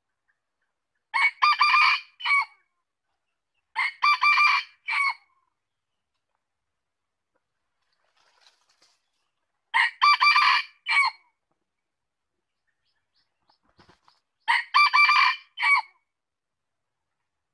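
A male red junglefowl crowing four times, several seconds apart, each crow clipped and about a second and a half long with a short separate final note: the crow of a male decoy bird, used to lure wild junglefowl cocks to a snare.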